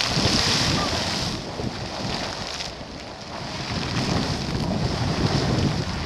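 Sawmill Geyser erupting: water bursting and splashing from its crater pool with a steady hiss, louder in the first second and again near the end. Wind buffets the microphone underneath.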